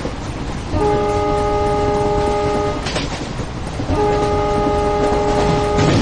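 Train horn sounding two long blasts of about two seconds each, a chord of several tones, over the steady rumble of the running train.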